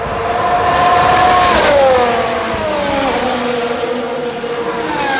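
Racing car engine running at high revs, its pitch sliding down over a second or two and then holding steady at a lower note.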